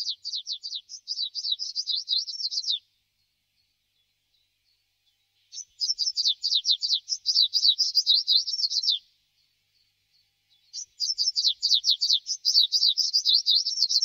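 Greenish warbler singing: three fast phrases of about three seconds each, a few seconds apart, each a quick run of short, high, falling notes.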